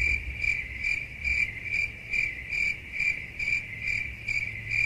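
Cricket chirping sound effect edited in over the silent tasting: a high, steady chirp pulsing about twice a second, starting and stopping abruptly.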